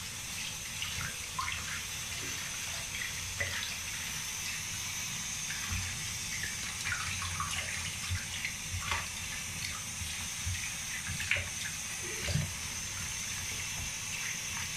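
Water running steadily from a bathroom tap into a plastic basin, with small splashes and wet sloshing as hands wash a chihuahua standing in it.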